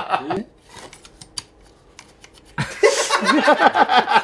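A few faint clicks and a scrape from a kitchen knife drawn through a manual knife sharpener, then men burst out laughing about two and a half seconds in.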